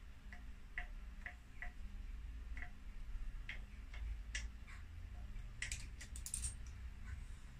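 Light metallic clicks and ticks from hand tools working on a motorcycle, coming irregularly a couple of times a second, with a quick flurry of sharper clicks about six seconds in.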